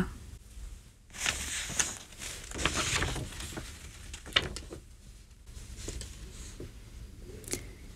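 A sheet of paper being picked up and handled, rustling on and off, with one sharp click about four and a half seconds in, over a low steady room hum.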